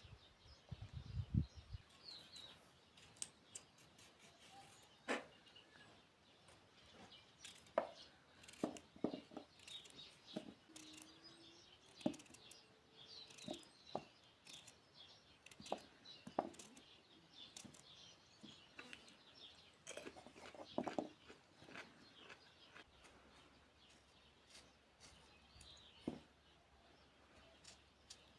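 Birds chirping faintly, with scattered light clicks and taps and a few low thumps near the start.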